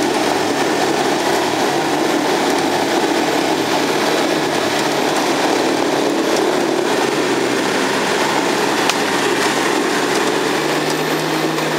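Nissan Patrol's diesel engine running steadily under load as the 4x4 is pulled through deep mud on its winch line.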